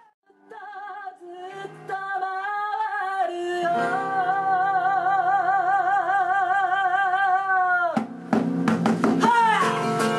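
A woman singing live over her acoustic guitar: after a moment of near silence at the start, she holds one long note with wide vibrato over a ringing guitar chord, lets it slide down about eight seconds in, and the strummed acoustic guitar comes back in under her voice.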